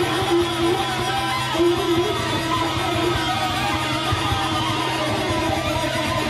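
Improvised duo for electric guitar and hand-played rubber balloon. A steady low guitar drone sits under a dense, unbroken texture of wavering tones from the balloon being rubbed and squeezed.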